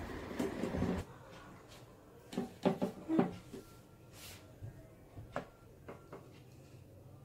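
Faint scattered kitchen knocks and clicks, ending with a couple of sharp clinks as a steel ladle touches the ceramic plate while spooning curry onto it.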